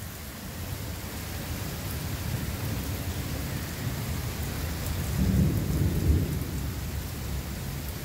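Heavy rain pouring down in a thunderstorm, a steady hiss, with a low rumble of thunder swelling about five seconds in.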